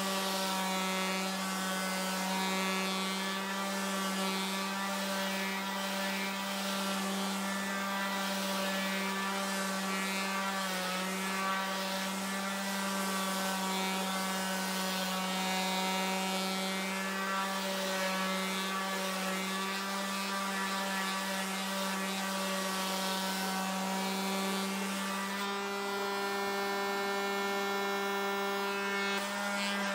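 TOTAL TF1301826 electric finishing sander running with a steady motor hum, its pad scrubbing sandpaper over a painted wooden board. About 25 seconds in it is lifted off the wood and runs free: the scrubbing noise drops away and the hum goes on.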